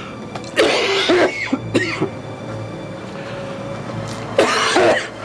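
A man coughing and clearing his throat in three short fits, the last near the end, over steady background music.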